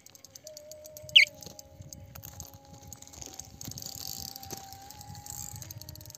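Faint outdoor shoreline ambience: a steady thin hum and a high chirring haze, with one short, sharp chirp that glides downward about a second in.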